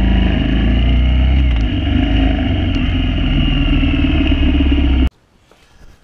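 A Yamaha Virago XV750's air-cooled V-twin engine running steadily while the motorcycle is ridden along the road. It cuts off suddenly about five seconds in.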